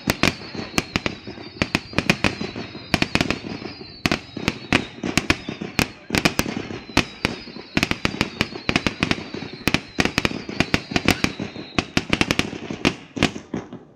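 Fireworks going off in a dense, irregular run of sharp bangs and cracks, several a second, thinning out near the end.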